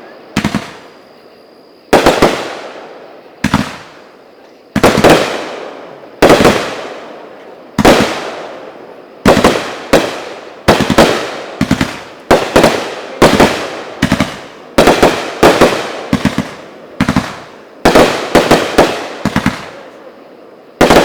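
Consumer 500g firework cake shooting aerial shells. A loud sharp report comes about every second and a half, each one trailing off in a long echo. In the second half many reports arrive in quick doubles and triples, as two cakes fire together.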